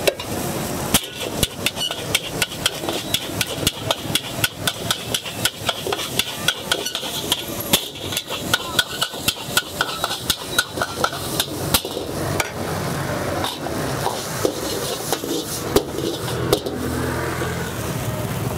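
Metal ladle striking and scraping a wok as noodles are stir-fried, a quick clanging about three times a second. The strikes thin out after about twelve seconds, leaving a steadier stirring noise with only an occasional clang.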